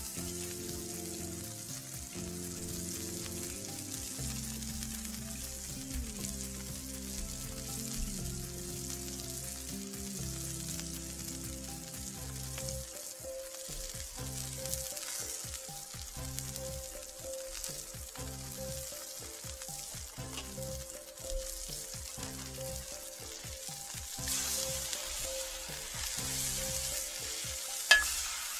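Ground-beef smash-burger patties sizzling steadily on a cast-iron griddle over a charcoal kettle grill, the sizzle growing louder near the end. Right at the end a metal spatula clacks sharply against the griddle as it slides under a patty to flip it.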